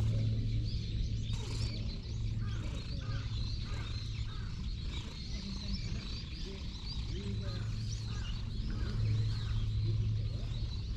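Small birds chirping and calling, with a run of short repeated calls from about two to nine seconds in, over a low steady rumble.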